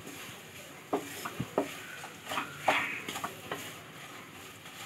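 Wooden spatula stirring and scraping a crumbly filling of grated coconut, khoa and jaggery around a hot pan in ghee, with irregular scrapes and knocks against the pan.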